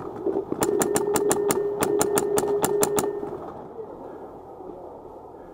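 Paintball marker firing a rapid string of shots, about six a second, with a steady hum under the shots. The firing stops about three seconds in.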